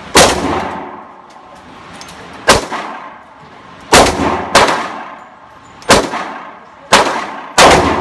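Seven gunshots at uneven intervals, each a sharp crack with a short echoing tail, two of them in quick succession about four seconds in and again near the end.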